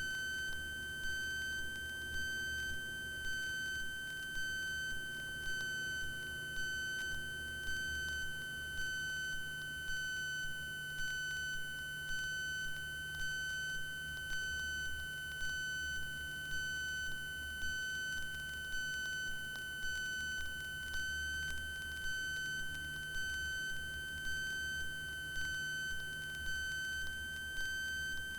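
A steady, high electronic tone with overtones and a faint pulse about once a second, over a low hum in the aircraft intercom audio.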